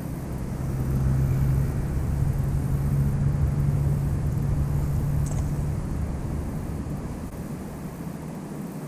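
A road vehicle passing by: a low engine hum that swells over the first two seconds, holds, then fades away.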